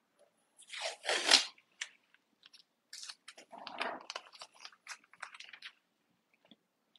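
Masking tape pulled off the roll and torn, a loud rip about a second in, then crackling and rustling as the tape is handled and pressed onto the paper.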